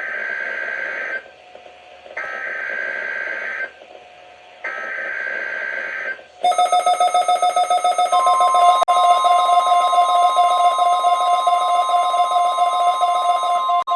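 Emergency Alert System test on NOAA Weather Radio: three raspy bursts of SAME digital header data, each about a second and a half long, then a loud, rapidly pulsing electronic alarm. A steady single warning-alarm tone joins about eight seconds in.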